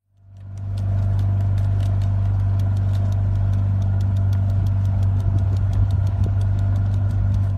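A loud, steady low mechanical hum, like an idling engine, with a fast, even ticking over it; it fades in during the first second.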